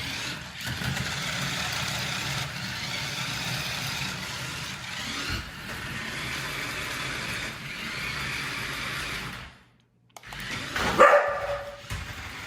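Small battery-powered toy RC car running, its electric motor and wheels whirring steadily. The sound cuts out briefly, then a sudden loud, short sound comes a little after.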